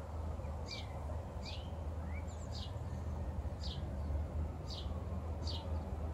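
A bird chirping over and over, a short high falling chirp about once a second, over a steady low rumble.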